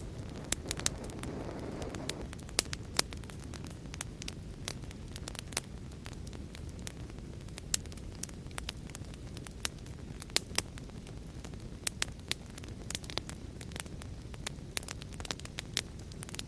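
Fire in a fireplace crackling: irregular sharp pops and snaps, many a second at times, over a steady low rush of the flames, with a brief swell of the flame noise about a second in.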